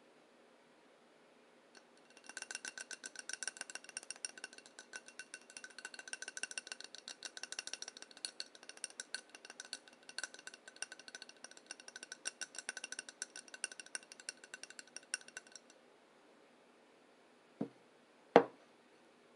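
A utensil clinks rapidly against a dish that rings at a few steady pitches, then stops. Two sharp knocks follow near the end, the second the louder.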